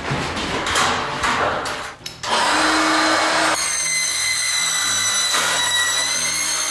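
Steel drywall studs being fastened into the track with a hand stud crimper: irregular metallic clicks and knocks, then a dense noisy stretch, then from about three and a half seconds in a steady high whine.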